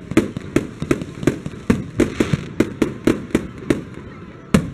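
Aerial fireworks going off in a rapid run of sharp bangs, about three a second, then a short lull and one loud bang near the end.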